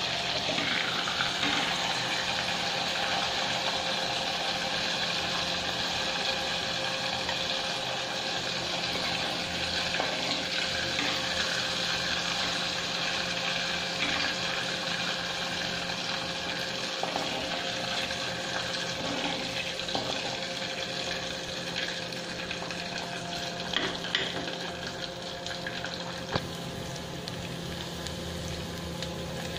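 Hot oil sizzling steadily in a pan on a gas burner: the oil left over from frying chicken liver. A faint steady hum runs underneath.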